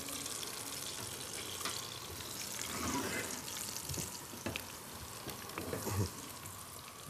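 Food frying in hot oil, a faint steady sizzle, with a few light clicks.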